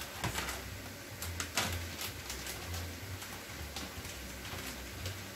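Bacon bits shaken out of a plastic bag onto a salad: a few light clicks and rustles, over a low hum that comes and goes.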